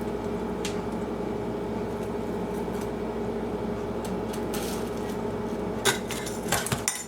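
Steady hum of a kitchen appliance running, with a few light clicks and clatters of dishes near the end; the hum cuts off just before the end.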